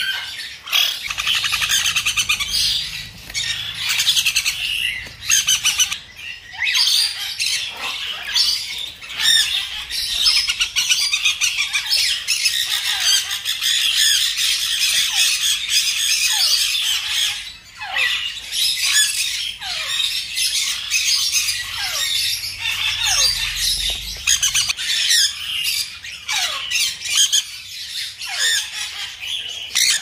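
Young parrot chicks squawking and calling without a break: a dense, harsh chatter with many short calls that slide down in pitch, most of them in the second half.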